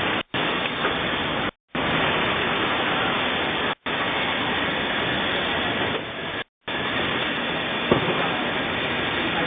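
Automatic band-saw toilet paper roll cutting machine running: a steady mechanical noise, broken by a few very brief silences and with one sharp click near the end.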